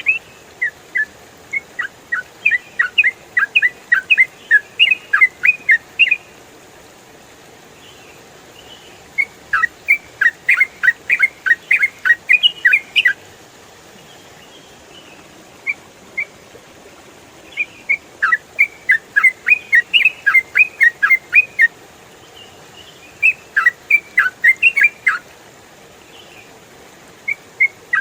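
Yellow-vented bulbul singing in rapid bursts of sharp, chattering notes, about four a second. The bouts last a few seconds each, with short pauses between, over a faint steady hiss.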